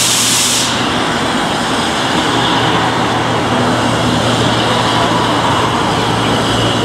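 Steam hissing from an LSWR M7 class tank locomotive standing at the platform, cutting off suddenly under a second in. A steady low rumbling noise carries on after it.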